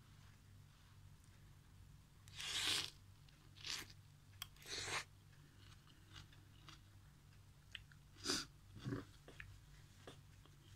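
A person eating instant noodles with a spoon: a handful of short chewing and slurping noises, with faint light clicks between them. A low steady hum runs underneath.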